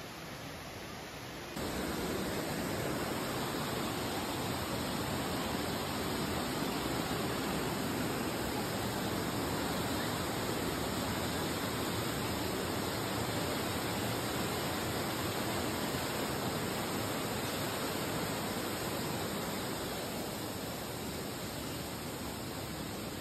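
Waterfall rushing over rock ledges: a steady wash of white water that gets louder about a second and a half in and eases a little near the end.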